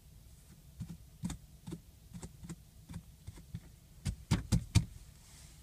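Irregular sharp clicks and taps close to the microphone, about a dozen of them, with a quick run of heavier knocks near the end.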